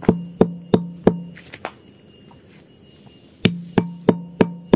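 A bottle pounding loose oil-palm fruitlets to crush them: hollow knocks about three a second, stopping for about two seconds midway before the pounding resumes.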